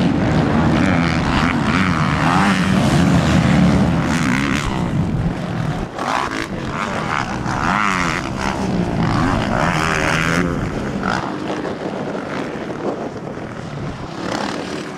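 Motocross dirt bike engines revving as the bikes ride, with the engine pitch rising and falling in repeated surges and more than one bike heard at once. The engines ease off a little toward the end.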